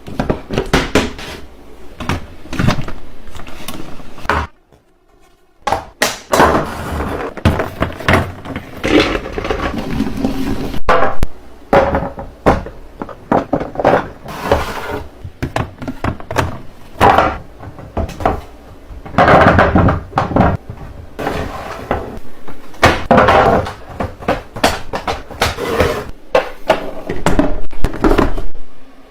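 Food containers, jars and packaging being handled and set down while restocking a fridge: a close, busy run of knocks, clacks and rustling, broken by a short pause about five seconds in.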